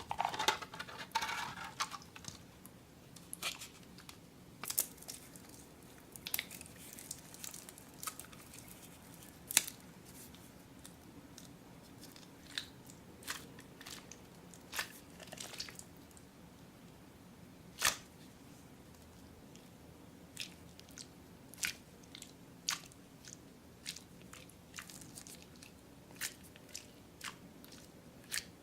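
Slime and Orbeez water beads being squeezed and handled: scattered sharp, wet-sounding pops and crackles, with a dense cluster of them in the first two seconds.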